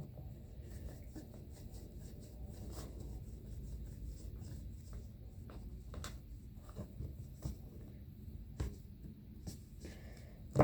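Light rubbing and scratching with scattered small clicks and taps as a phone is handled, wiped and picked clean of leftover rice, over a steady low background hum.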